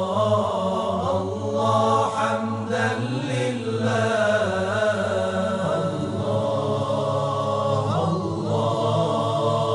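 Chanted vocal music: voices singing a slow, flowing melody over a steady low drone.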